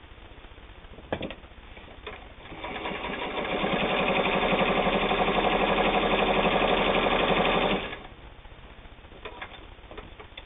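Kenmore 158.521 all-steel gear-driven sewing machine stitching through heavy denim. It starts about two seconds in, speeds up to a fast, even stitching rhythm, runs steadily for about four seconds, then stops abruptly. A few light clicks come before and after.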